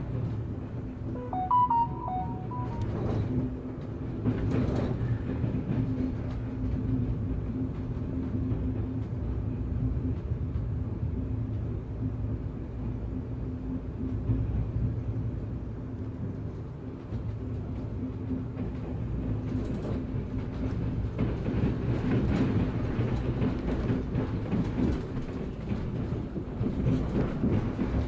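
Running noise heard from inside a MÁV InterCity passenger coach: a steady low rumble and hum of the wheels on the track. It gets louder and busier with clatter over the yard tracks in the last third.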